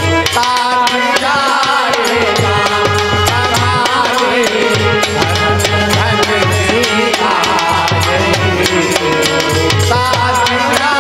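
Instrumental interlude of a live Indian folk devotional song: hand drums keep a quick, steady beat under a wavering melody line, with regular percussion strokes.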